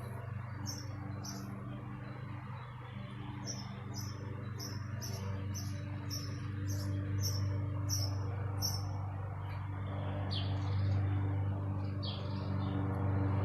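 A songbird chirping over and over, short high downward chirps about two a second, over a steady low hum that grows louder near the end.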